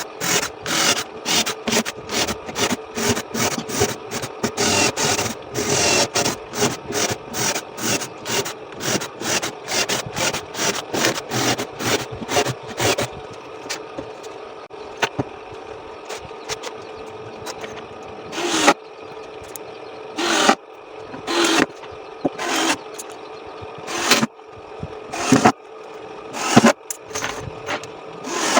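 Rhythmic scraping strokes of hand work on a workpiece, about two to three a second for roughly the first half, then single strokes or short runs a few seconds apart, over a steady hum.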